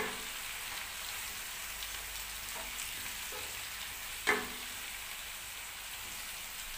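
Cabbage, zucchini and red bell pepper sizzling steadily in a stainless steel pan over a gas flame while being stirred with a wooden spoon. The spoon knocks sharply against the pan twice, at the start and about four seconds in.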